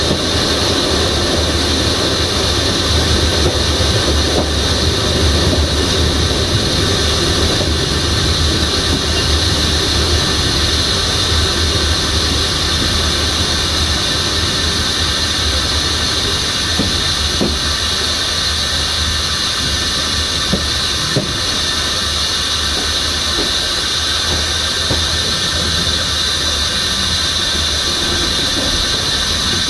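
Passenger train running on the rails: steady low rumble with a continuous high-pitched squeal from the wheels, and a few short knocks in the second half.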